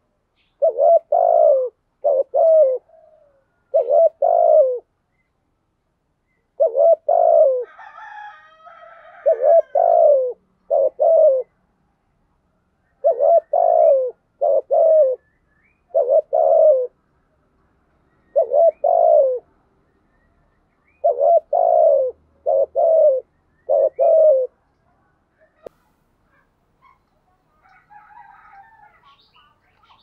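Spotted dove cooing in a string of phrases of two or three notes each, with short pauses between. This is the brisk 'thúc gù' calling of a trained decoy dove, used to provoke wild doves to coo back.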